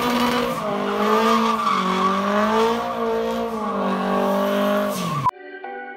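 1969 Datsun 510's swapped turbocharged SR20DET inline-four held at high revs, its pitch wavering up and down as the rear tyres spin and squeal through smoky donuts. About five seconds in it cuts off suddenly and music with steady notes begins.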